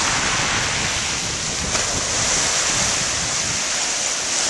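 Sea waves washing onto a beach, with wind buffeting the microphone in a steady rumble.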